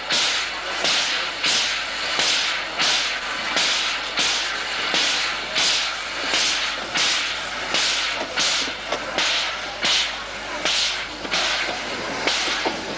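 Narrow-gauge steam locomotive giving off rhythmic hissing puffs of steam, about two a second, spacing out slightly after about eight seconds.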